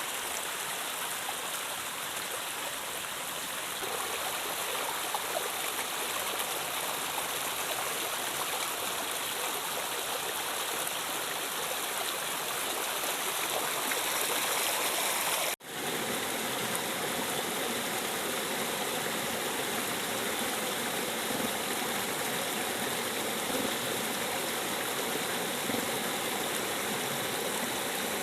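River water rushing steadily. The sound drops out for a moment about halfway through, and after that a faint steady hum runs beneath the water.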